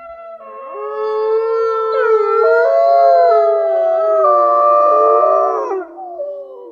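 Several huskies howling together in long, overlapping howls at different pitches. The chorus swells up about half a second in, holds, and dies away near the end.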